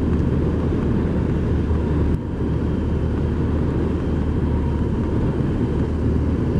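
2008 BMW R1200 R boxer-twin motorcycle riding at a steady pace. The engine runs under a heavy rumble of wind on the microphone, with a brief dip in level about two seconds in.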